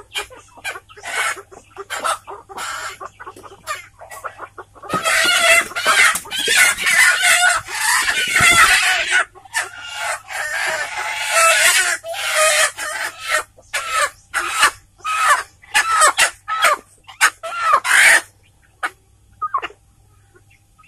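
Kampung (native Indonesian village) chickens clucking and squawking as one is caught and handled from a wooden coop. Short separate clucks at first, then loud, continuous squawking for several seconds from about five seconds in, easing into short repeated calls that stop shortly before the end.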